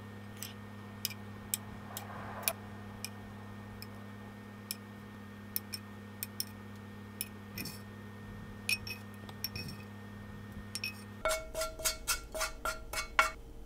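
Wooden chopsticks clicking lightly against a frying pan and a ceramic plate as pieces of glazed pork are lifted and set down, one scattered click at a time, over a steady low hum. Near the end the hum stops and a quicker run of ringing clinks follows as the pan is tipped and scraped over the plate.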